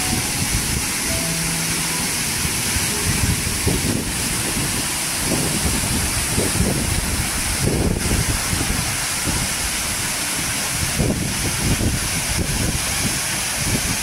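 Waterfall rushing: a steady roar of falling water with uneven low rumbling.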